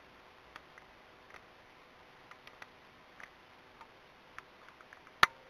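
Faint, scattered small clicks and taps of fingers handling and pressing torn paper-napkin pieces onto a container, with one sharp, much louder click near the end.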